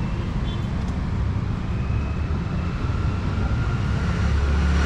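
A steady low rumble of road traffic, growing louder near the end.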